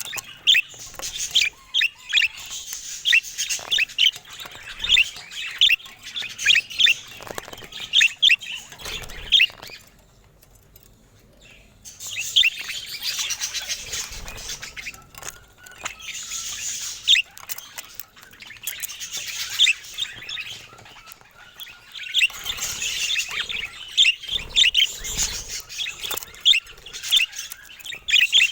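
Budgerigars chattering, with rapid high chirps and warbles. The chirping pauses for about two seconds roughly ten seconds in, then carries on.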